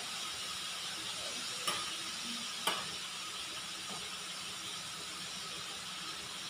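Steady hiss and low hum of a stove and extractor hood, with sharp clicks of a metal utensil against a large aluminium pan as chicken is stirred: two clear ones a little under two and under three seconds in, and a fainter one about four seconds in.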